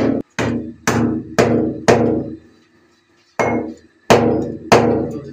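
Hand hammer striking fixings into a plastered wall: about eight sharp blows, roughly two a second, with a pause of over a second midway, each ringing briefly.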